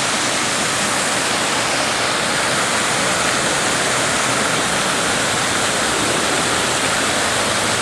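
Millpond waterfall: water pouring over the dam in a steady, even rush.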